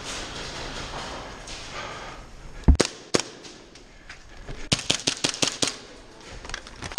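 Airsoft gun firing: two sharp single shots about half a second apart near the three-second mark, then a quick string of about eight shots in roughly a second around five seconds in. A soft rushing noise fills the first two seconds.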